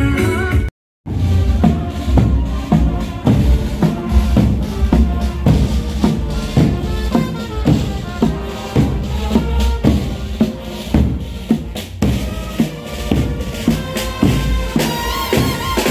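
Marching band's drum section playing a steady march beat of bass drum and snare, starting about a second in, with the brass coming in near the end.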